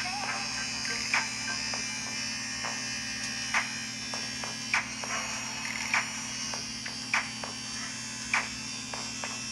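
A small electric power tool runs steadily, cutting through a metal YouTube play-button plaque held in a vise. Sharp clicks come about once a second.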